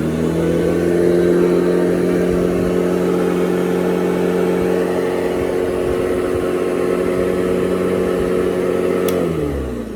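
1940s Hoover Model 28 vacuum cleaner's electric motor coming up to speed and running with a steady hum. About nine seconds in it is switched off with a click and winds down, its pitch falling.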